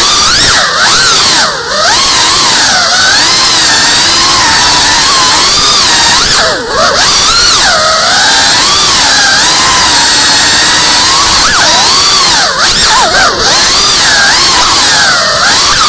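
Small FPV quadcopter's electric motors and propellers whining loudly, the pitch swinging up and down with the throttle, with a few brief drops where the throttle is cut for a moment.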